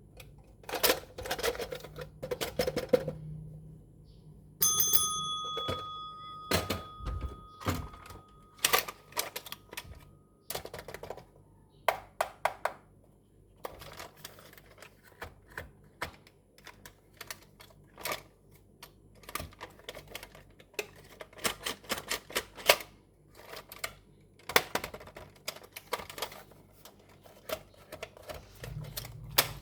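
Toys and plastic packaging being handled in an unboxing: a run of sharp clicks, taps and rustles. A steady electronic tone sounds from about five seconds in to about ten seconds in.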